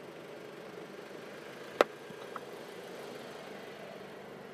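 Jaguar E-Pace SUV's engine running steadily, with one sharp knock a little under two seconds in.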